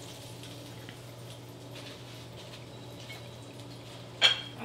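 Quiet kitchen room tone with a steady low hum, broken once, about four seconds in, by a short sharp clink.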